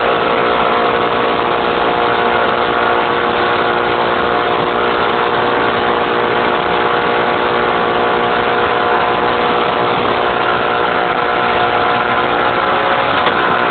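Outboard motor of a motorboat running steadily at speed, with the rush of water from the wake.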